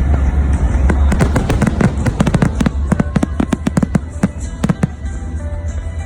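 Fireworks going off in a rapid run of sharp cracks and pops over a low rumble, densest in the first few seconds, then thinning to scattered cracks.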